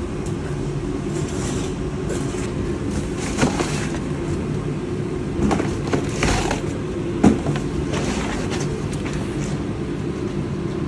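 Plastic vacuum-cleaner parts and packaging being handled: scattered knocks, clacks and rustles, the sharpest about seven seconds in, over a steady low mechanical hum.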